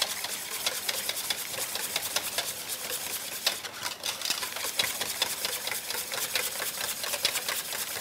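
Wire balloon whisk beating eggs and oil in a stainless steel bowl, its wires clicking rapidly and steadily against the metal.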